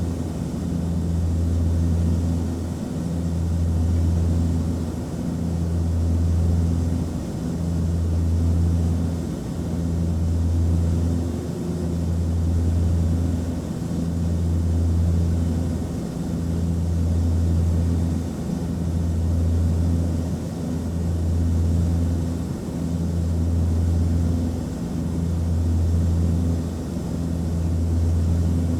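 Antonov An-24 turboprop airliner heard from inside the cabin in flight: a steady low propeller drone under a broad rushing noise. The drone swells and fades regularly, about every two and a half seconds.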